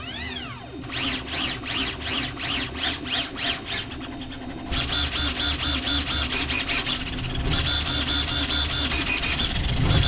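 VzBoT CoreXY 3D printer's stepper motors whining as the toolhead makes rapid back-and-forth speed-test moves at 2000 mm/s, each move a rising-and-falling whine, about three a second. About five seconds in, with acceleration raised to 60000 mm/s², it turns into a louder, denser buzz with steady high tones.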